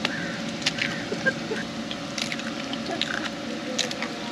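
Raw eggs being cracked one after another into a bowl: short sharp taps of shell on the rim and the wet plop of the eggs dropping in, repeated about half a dozen times.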